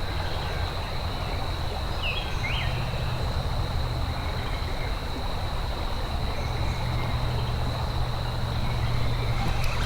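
Creek water running steadily, with a constant high-pitched insect drone over it and a couple of short bird chirps about two seconds in.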